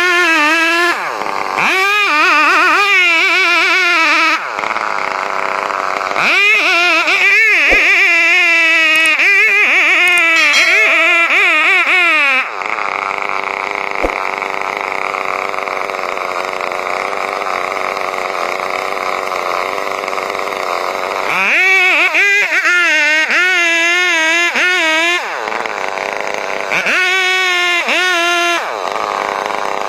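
Chainsaw engine running hard and cutting, its pitch wavering up and down in spells, with a steadier, lower stretch in the middle.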